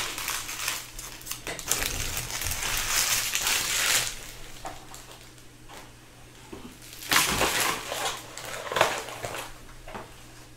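Torn foil trading-card pack wrappers being crumpled and gathered up by hand. There is a dense crinkling rustle for the first four seconds or so, then a few shorter rustles.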